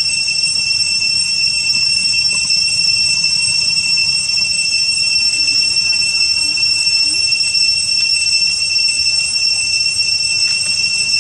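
Cicadas droning in a steady, high-pitched, unbroken whine, with a low rumble underneath.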